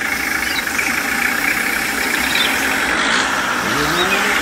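A mini toy tractor's engine-like running sound, steady as it pulls a loaded trailer; about three and a half seconds in, a rising pitch glides in.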